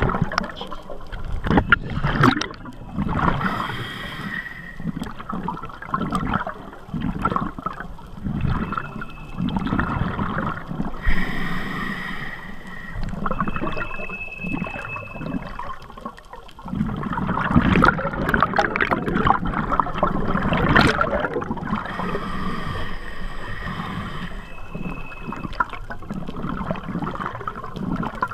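Scuba breathing heard underwater: a diver's regulator hisses on each inhalation and the exhaled air bubbles out in gurgling rushes, repeating in a slow breathing cycle every several seconds.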